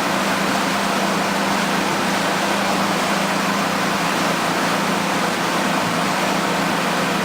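A motorboat running steadily under way, with a constant engine hum beneath a loud, even rush of wind and water.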